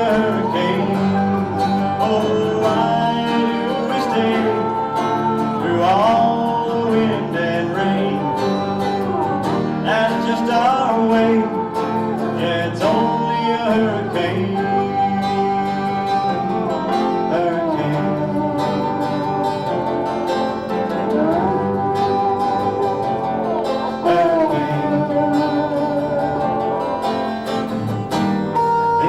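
A small acoustic band playing a country-style song: strummed guitar under a lead melody of held notes that slide between pitches.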